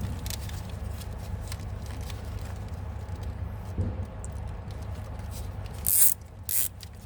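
Nylon cable tie pulled tight through its ratchet head, two short zipping rasps near the end, over a steady low hum and a few light clicks.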